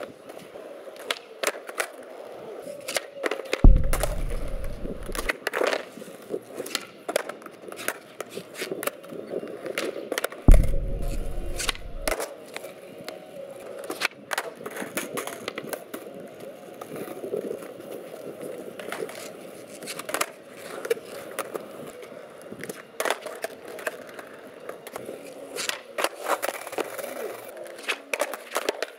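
Skateboards on a concrete floor: wheels rolling, tails popping and boards clattering down as flatground flip tricks are tried. There are many sharp clacks throughout, and two much louder board impacts about four and ten seconds in.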